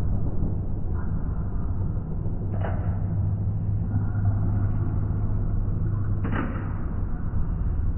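Fireworks going off: sudden bangs with a short ringing tail, the two loudest about two and a half and six seconds in, over a steady low rumble.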